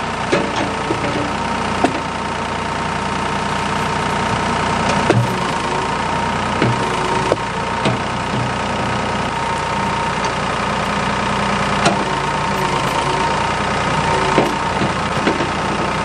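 Ford backhoe engine running steadily while its bucket works fallen logs, with a handful of sharp knocks scattered through as the bucket strikes the logs and the old, rotten wood breaks apart.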